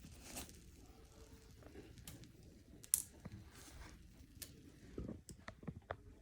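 Faint scattered clicks and taps from salted ginger pieces dry-roasting in a pan over a low flame. One sharp click comes about three seconds in, and a cluster of clicks near the end.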